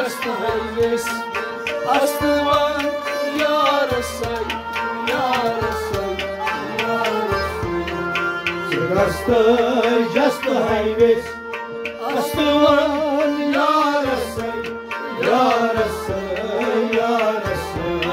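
Live Kashmiri devotional kalam: a man sings over a harmonium's held chords and a plucked rabab, with regular hand-drum strokes keeping the beat.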